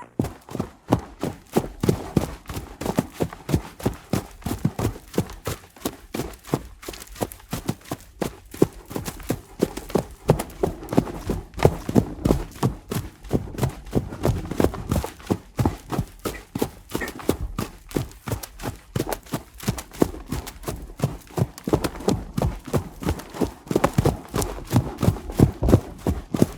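Hoofbeats of a running horse: a steady, rapid drumming of hoof strikes, a few per second, that keeps going without a break.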